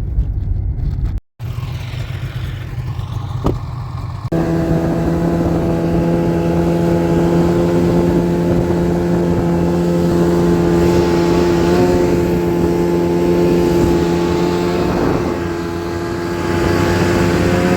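Snowmobile engine running at steady speed, a loud even tone with a clear pitch. The sound cuts out briefly about a second in and jumps louder about four seconds in.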